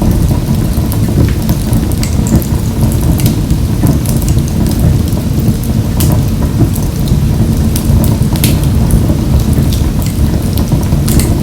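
Wood fire burning in a wood-burning stove: a steady low rumble of the flames with scattered sharp crackles and pops.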